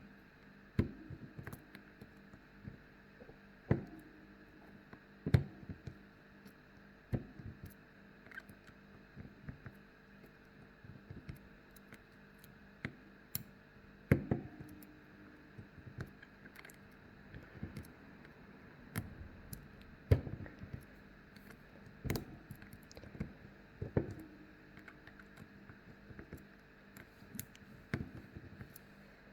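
Sharp metal clicks and light knocks as a pick works the pins of a SAG five-pin stainless steel tubular padlock under tension, at irregular intervals every second or two, with fainter ticks in between.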